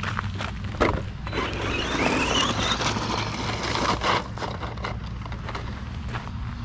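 Redcat Camo TT Pro RC truck's electric motor whining up in pitch as it accelerates away over wet gravel and grass, with a rush of tyre noise lasting about three seconds, after a single knock about a second in. Light footsteps crunch on gravel before and after.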